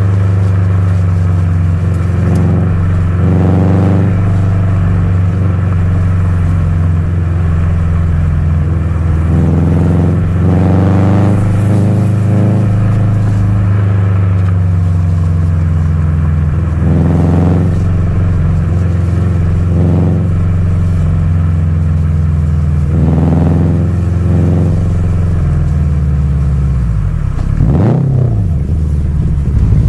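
Subaru WRX STI's turbocharged flat-four boxer engine and exhaust rumbling while driving. The engine note rises and falls several times as it accelerates and shifts, with a quick drop and rise in revs near the end.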